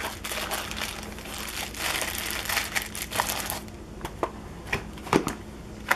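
Clear plastic bag crinkling as it is handled in a foam-lined pistol case, with dense crackling that thins out after about three and a half seconds into a few separate sharp clicks and taps.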